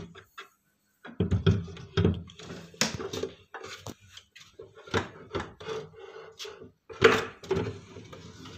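A large wooden cupboard drawer being slid in and out on its bottom-mounted roller runners, with a string of wooden knocks and rubbing scrapes. It goes fully in and comes out easily, no longer catching at the top after the runner height was lowered.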